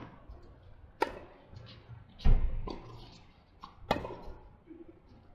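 Tennis ball struck by rackets in a rally: four sharp hits about a second apart, the loudest, a little after two seconds in, with a low thump.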